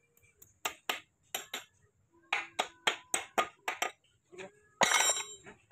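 Steel combination wrench working a nut inside a manual transmission case: a quick series of sharp metallic clicks, about four or five a second, then a louder metallic clatter near the end.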